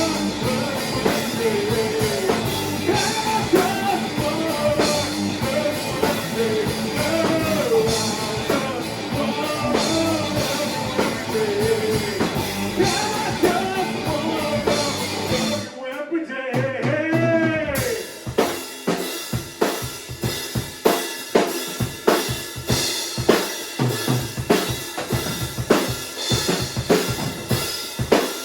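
A band playing a song, with a singer over drums. A little past halfway the drums and bass drop out for about two seconds, leaving a gliding line. Then the band comes back in on a drum-led section of steady, punchy hits.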